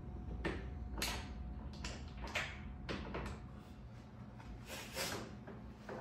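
Handling noises from fitting a gaming chair's plastic armrest onto the seat: a string of short knocks, clicks and scrapes every half second or so, over a low steady hum.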